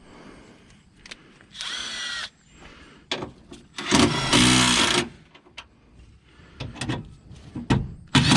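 Power drill run in short bursts, driving fasteners as a panel is refitted: a brief spin-up with a gliding whine about two seconds in, a longer, louder run about four seconds in, and another short burst at the end, with small clicks of handling between.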